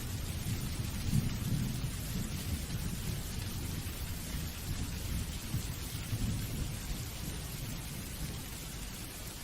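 Steady rain hissing, with a low rolling rumble of thunder that swells about a second in and slowly dies away toward the end.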